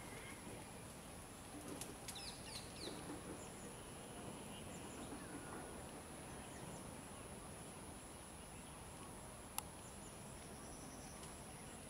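Faint rural outdoor ambience: a steady high-pitched whine with a few faint bird chirps about two to three seconds in, and a single sharp click near the end.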